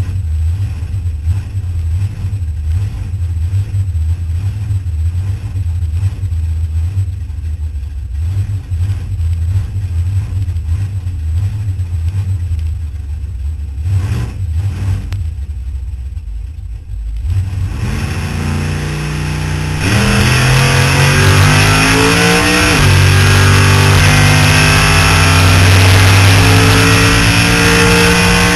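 Supercharged engine of a Holden VL Commodore drag car heard from inside the cockpit, idling at the start line. Revs build about seventeen seconds in, and about twenty seconds in it goes to full throttle for the launch. The pitch climbs, dips once about three seconds later at a gear change, then climbs again.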